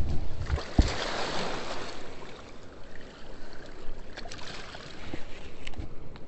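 Rushing river water that swells into louder splashing about a second in, with a low knock near the start and a few faint clicks later.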